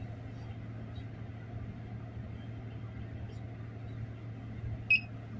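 Steady low drone of a ship's machinery, with one short, loud electronic beep about five seconds in.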